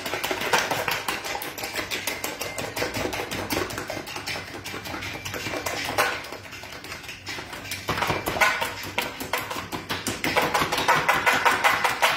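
Eggs being beaten by hand in a plastic tub: the utensil clicks rapidly and steadily against the container, growing louder in spells.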